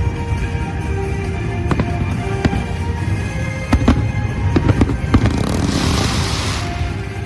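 Fireworks bursting in a string of sharp bangs, with a dense hissing crackle for about a second some five and a half seconds in, over music with sustained tones.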